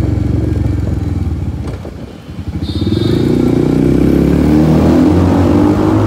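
Royal Enfield Hunter 350's single-cylinder engine running under way from the rider's seat. It eases off about two seconds in, then pulls again and builds.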